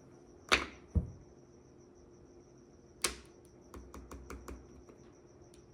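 Mahjong tiles clacking: sharp clacks of tiles set down on the table near half a second and one second in and again at about three seconds, followed by a quick run of lighter clicks.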